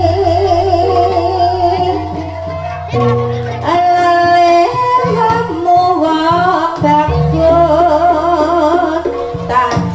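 Live Javanese jaranan music: a wavering, vibrato-laden melody that moves between held notes, over sustained low gong tones and occasional drum strokes.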